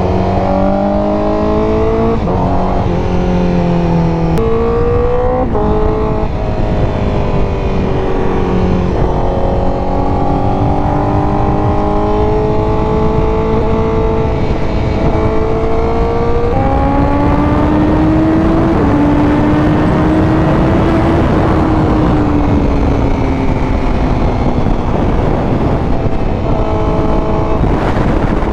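Honda CBR1000RR-R Fireblade SP's inline-four engine accelerating through the gears, its pitch climbing and dropping at each upshift. It later holds a steadier note and eases off, with wind rush throughout.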